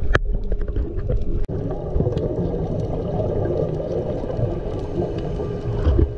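Underwater sound picked up by a diving camera: a low, muffled rumble of water with a faint steady hum and scattered sharp clicks, broken by a brief drop-out about a second and a half in.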